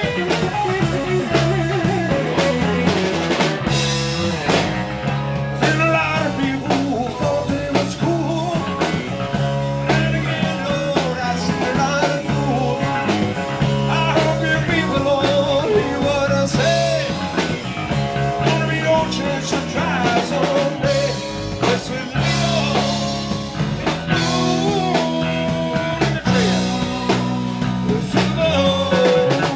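Live rock band playing: electric guitar, electric bass and drum kit, with bass notes repeating under wavering guitar lines.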